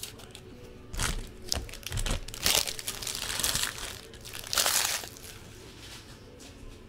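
Crinkling and tearing of a trading card pack wrapper as it is opened, in several rustling bursts between about one and five seconds in.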